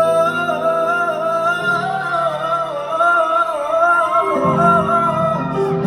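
Music: a male voice sings a wordless, wavering run over sustained backing chords.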